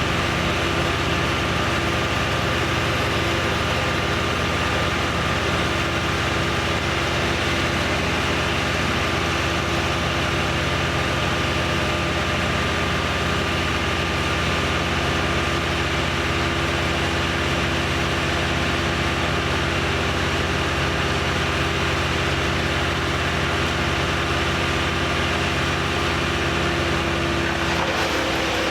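An engine running steadily at one constant speed, with a steady hum and a thin high tone held throughout.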